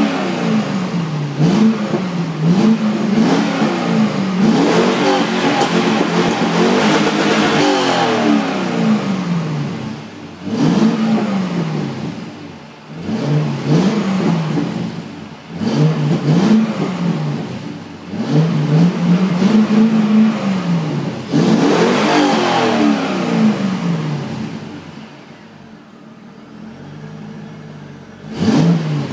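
C5 Chevrolet Corvette convertible's 5.7-litre LS1 V8 being free-revved while parked. First a quick run of throttle blips, then a series of separate revs, one held for about two seconds. It drops back to a quieter idle near the end, with one more short blip just before the end.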